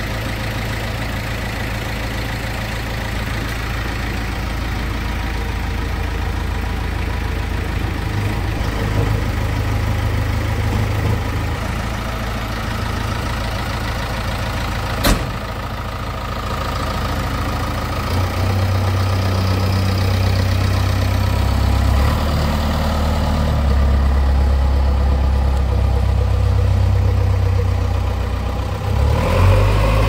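JCB Eco backhoe loader's diesel engine running steadily as the machine works. A single sharp click comes about halfway through, and the engine runs louder from a little past the middle.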